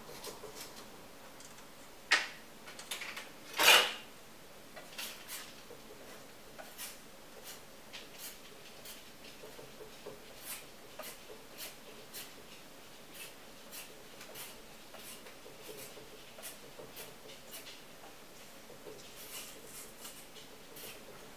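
Two sharp knocks about two and four seconds in, then a run of light clicks and taps, roughly one or two a second, from hard objects being handled.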